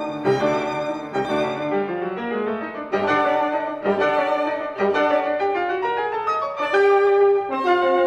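Instrumental background music: a melody of held pitched notes that change every fraction of a second.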